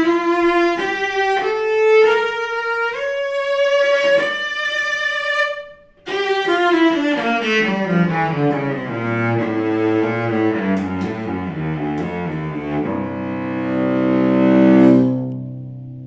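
Solo bowed cello: a line of notes climbing to a held high note, a brief break, then a run descending to the low strings that ends on a held low chord, which swells and dies away near the end.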